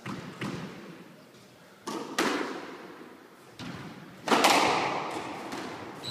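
Squash rally: the ball struck by rackets and smacking off the court walls, a string of sharp hits, often in pairs, each ringing briefly in the court. The loudest hit comes about four seconds in.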